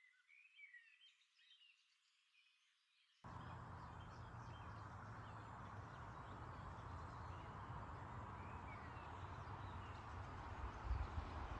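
Small birds chirping, faint and scattered. About three seconds in, a sudden change to a steady outdoor hiss with a low rumble underneath, the birds still faintly chirping over it.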